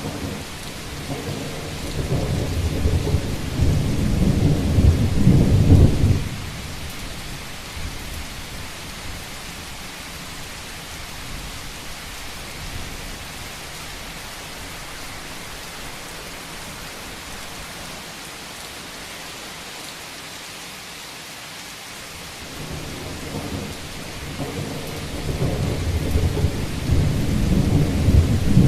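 Steady heavy rain drumming on a rooftop, with two long low rolls of thunder: the first swells from about a second in and cuts off about six seconds in, and the second builds near the end.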